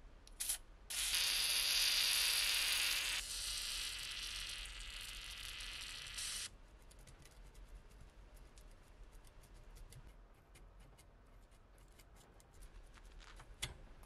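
WD-40 aerosol can sprayed through its straw nozzle: a short puff, then a steady hiss of about five and a half seconds, loudest for the first two seconds, that cuts off sharply. Afterwards faint metal clicks as the corroded lighter insert is worked loose.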